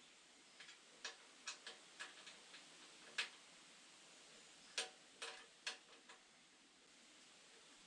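Faint irregular clicks of a hand ratchet wrench as a bolt is tightened by hand on the engine, about a dozen clicks in two bursts of short strokes.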